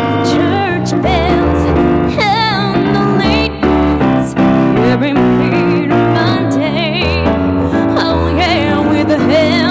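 A woman singing live with vibrato over piano-sound accompaniment from a digital keyboard. Her voice comes in about half a second in, in phrases over steadily held keyboard chords.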